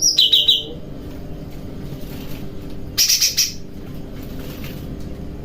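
A small cage songbird chirping: a quick run of short chirps at the start and another rapid burst about three seconds in, over a steady low hum.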